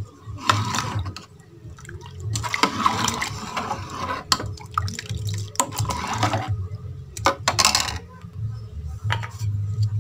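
Steel ladle stirring thick sambar in a metal pot: liquid sloshing and the ladle scraping the pot in several irregular bursts, over a low steady hum.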